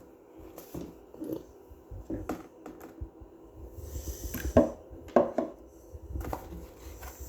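Handling noise: scattered light knocks and clicks, with a brief rustle about four seconds in.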